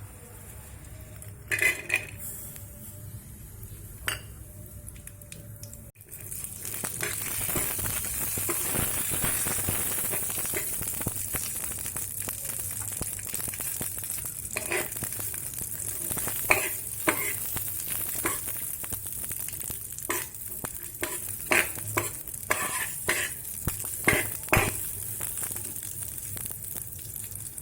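Cashews and raisins frying in ghee in a pan, with a steady high sizzle that starts about six seconds in. A spoon stirring and clinking against the pan is heard repeatedly through the second half. Before the sizzle there are only a few single clinks.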